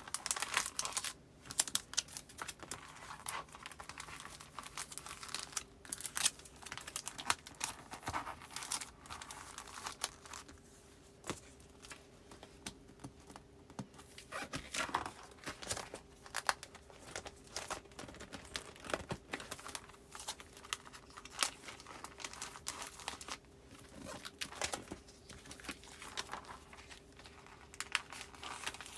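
Postcards and paper goods being filed into a binder's plastic sleeves: irregular crinkling of plastic and rustling of paper, with sharp little clicks and taps.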